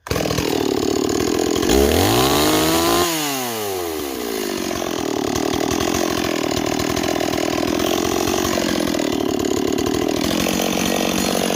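Stihl 026 two-stroke chainsaw running at high speed. About two seconds in, its pitch climbs and then drops back, and it settles into a steady high-speed run with slight dips in pitch.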